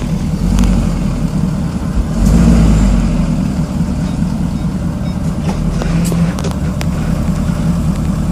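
Ford F250 6.7L Power Stroke V8 turbo-diesel running, louder for a moment about two seconds in, with a few short, sharp metallic pings from underneath scattered through. The pings come only sporadically under throttle in gear; the owner suspects a driveshaft U-joint.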